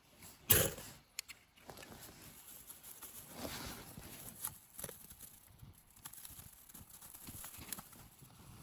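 A sharp knock, then a few lighter clicks and a soft rustle, from dry wood and bark being handled while a campfire is being lit.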